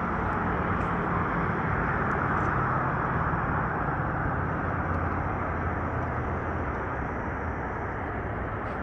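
Steady road traffic noise from vehicles passing below, with a low engine hum underneath.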